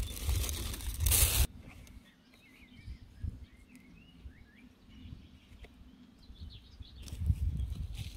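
A plastic bag crinkling loudly as it is pulled off a dahlia tuber, stopping suddenly about a second and a half in. Small birds then chirp in the background, and near the end potting soil rustles as it is tipped into a plastic pot.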